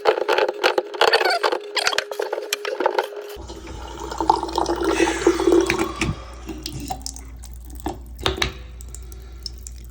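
Water running from a bathroom faucet into the sink, with a few knocks and clicks.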